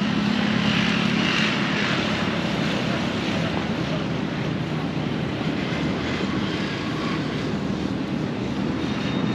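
Steady drone of vehicle engines and road traffic: a constant low hum under a broad rushing noise.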